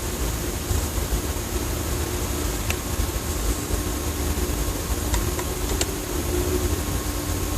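Steady, low, rumbling drone, like a distant engine running without pause, with a faint steady hum above it and a few faint ticks. It is heard as a constant engine noise in the sky, a rumbling with no train nearby to explain it.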